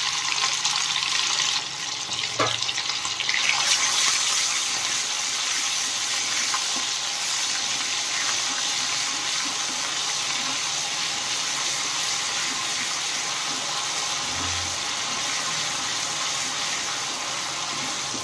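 Ginger-garlic paste sizzling in hot tempering oil in a pan: a steady hiss that grows louder about three and a half seconds in and then holds, with a light click shortly before.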